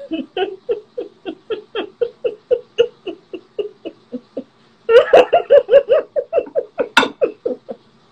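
Hearty laughter in rapid, rhythmic ha-ha pulses, about three or four a second, growing louder about five seconds in.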